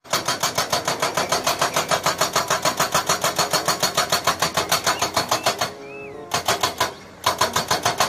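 Hydraulic breaker hammer on a Komatsu crawler excavator pounding rock, a rapid, even train of blows at about nine a second. It stops briefly twice in the second half and starts again each time.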